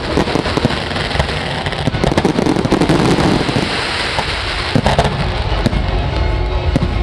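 Fireworks display going off: a dense, continuous crackle of rapid pops over a rolling rumble, with heavier low booms from about five seconds in.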